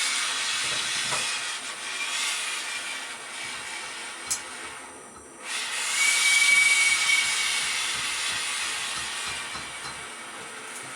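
Gas torch flame hissing steadily while it heats a stuck shower faucet stem to loosen it. The hiss drops away briefly after a click about four seconds in, then comes back at full strength.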